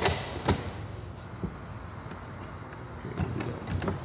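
A few sharp knocks and clicks in the first half second, then a single light tap: the carbon-fibre wing and its mounting bracket being handled and set against the metal swan-neck upright.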